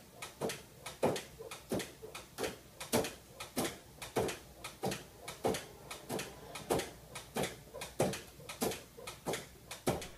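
Cat flap in an interior door clacking over and over as a cat bats at it with its paw, about three clacks a second.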